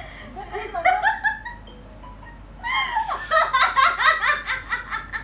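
Young women laughing: a short burst of giggling about half a second in, then a longer, louder fit of laughter from about three seconds in until just before the end.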